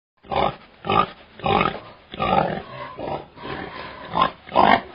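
A domestic pig grunting in a series of short, separate grunts, about eight in under five seconds.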